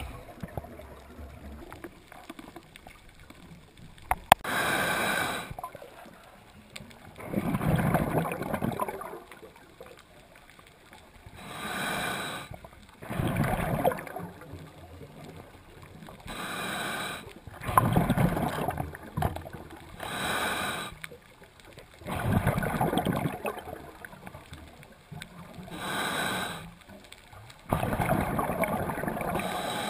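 Scuba diver breathing through a regulator, heard underwater through a camera housing: a hiss on each inhale, then a bass-heavy rush of exhaled bubbles, repeating every few seconds.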